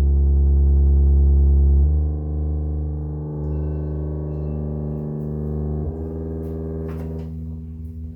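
Ground Zero GZTW 12 MK2 subwoofer playing a steady low sine-wave test tone in free air, with overtones above it. The tone steps to a new frequency about two seconds in, quieter after the change, and steps again about six seconds in. The owner calls this bass very soft and clean, without boominess.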